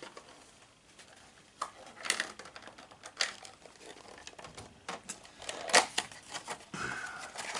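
Close handling of plastic packaging and small game pieces: irregular clicks, taps and crinkles.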